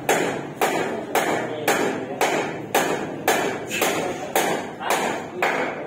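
Hammer blows on the metal ceiling framing, struck in a steady rhythm of about two a second, each followed by a short ring; the blows stop near the end.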